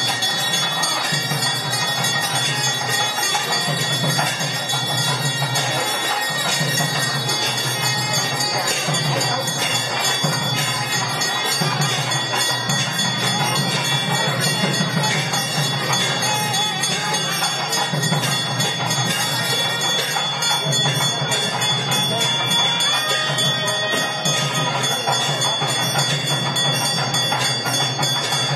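Temple bells ringing continuously in a dense clangour, mixed with music and voices.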